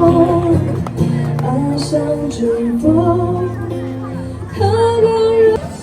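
Background music: a song with a singing voice over instrumental backing with held bass notes.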